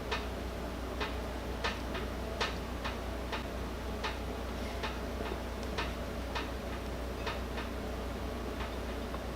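Light, irregular clicks and taps of hand tools and metal parts being worked, about one or two a second at uneven spacing, over a steady low hum.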